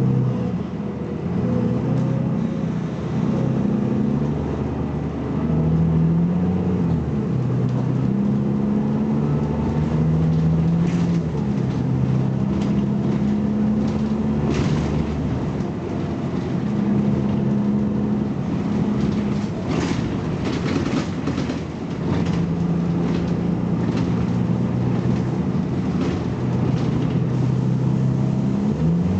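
Diesel engine of a BMC Belde 220-SLF city bus pulling under load. Its pitch climbs and drops back several times as the automatic gearbox shifts, with a few rattles and clicks over the running engine.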